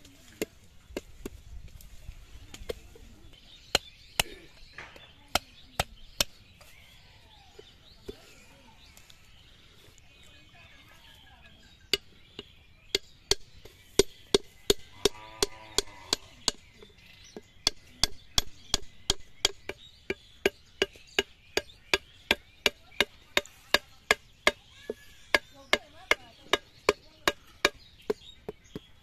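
Machete chopping into a green coconut's husk and shell: a run of sharp strikes. They are spaced out at first, thin out for a few seconds, then come back faster at about two a second.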